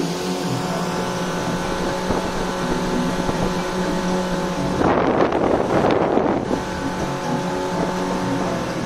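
Motorboat engine running steadily under way, with a burst of rushing noise lasting about a second and a half past the middle.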